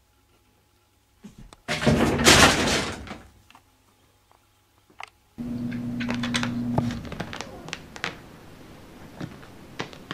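A door thumping and rattling loudly for about a second, starting about two seconds in. Later a steady low hum with scattered light taps.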